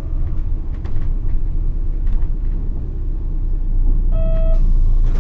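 Nissan Diesel KC-RM211GSN bus heard from on board, its FE6E six-cylinder diesel running with a loud low rumble that grows louder toward the end. This bus is known for an unusually harsh running noise. A short beep-like tone sounds about four seconds in.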